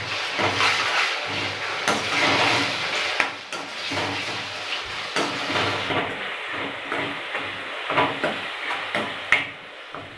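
Onions and green garlic-ginger-chilli-coriander paste sizzling in hot oil in a kadai, stirred with a steel spoon that scrapes and knocks against the pan every second or two. The sizzle softens in the second half.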